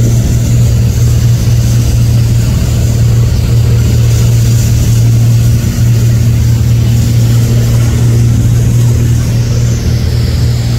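A boat's engine running loudly and steadily under way, a low even drone with a steady hiss over it.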